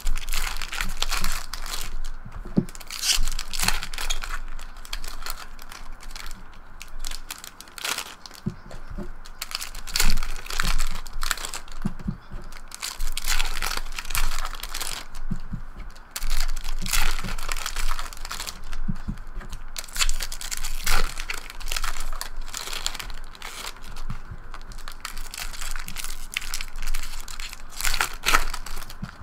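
Trading-card pack wrappers crinkling and tearing as packs are opened one after another and the cards pulled out and stacked. The rustles come in irregular bursts all through.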